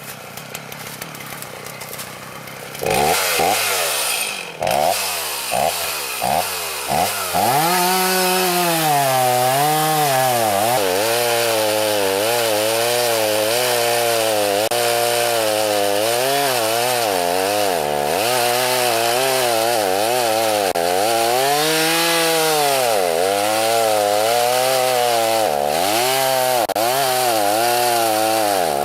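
Two-stroke chainsaw revved in several short bursts, then held at full throttle cutting wood, its pitch repeatedly sagging and picking up again as the chain loads and clears in the cut.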